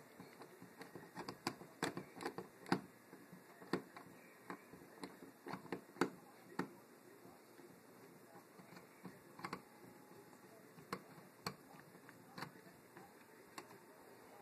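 Small screwdriver clicking and scraping against screw heads on a plastic thermostat wall plate: scattered light clicks, more frequent in the first half.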